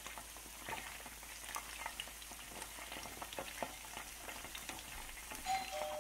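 Flour-and-cornstarch-battered chicken pieces frying in hot oil in a pan: a steady sizzle full of small crackles and pops, with a wooden spatula scraping and turning the pieces. A steady tone comes in near the end.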